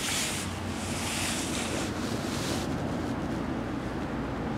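Steady rush of wind on the microphone and flowing river water. A brighter hiss over the top lasts about two and a half seconds, then drops away suddenly.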